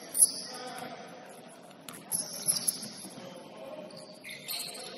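Sneakers squeaking on a hardwood gym floor during basketball play, short high squeaks coming and going, with a sharp knock just after the start and a few louder knocks around the middle.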